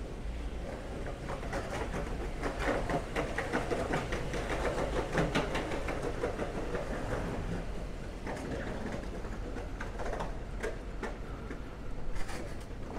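Footsteps on a city footpath, a dense run of clicking steps from several walkers, over a low steady street hum.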